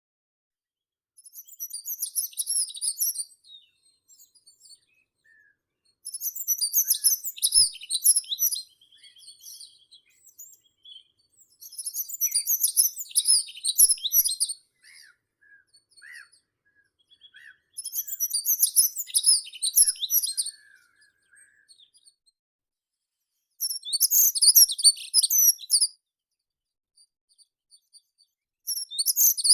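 A songbird singing a short, high, rapid phrase over and over, each phrase two to three seconds long and coming about every five to six seconds, with faint distant bird notes in the pauses.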